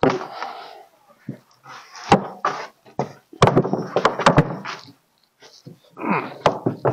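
Freshly sawn pine boards being handled on a band sawmill's bed: wood knocking and scraping against wood and the mill frame, with several sharp thunks, as boards are lifted and stood on edge.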